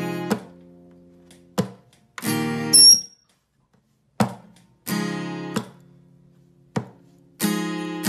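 Acoustic guitar strummed in short runs of chords, each chord left to ring and fade. Brief silent pauses fall between the strums, the longest about three seconds in.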